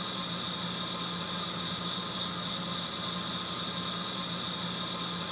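Steady, unchanging hiss with a faint low hum underneath.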